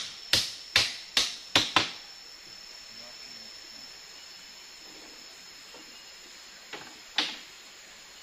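A quick, even run of sharp blows on the tree house's bamboo frame, about two or three a second, stopping about two seconds in, with two more knocks near the end. A high, steady insect drone runs under it.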